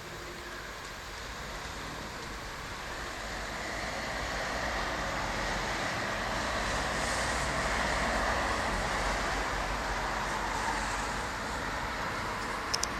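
Heavy rain pouring down in a steady hiss that swells over the first several seconds and then holds. A couple of sharp clicks come near the end.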